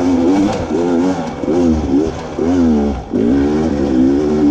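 Beta 300RR two-stroke dirt bike engine revving up and down in short repeated throttle bursts, its pitch rising and falling with each surge.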